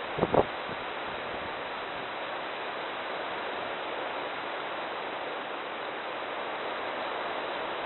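Steady hiss of outdoor air and wind noise picked up by a Browning trail camera's microphone, with a few sharp clicks about a quarter of a second in.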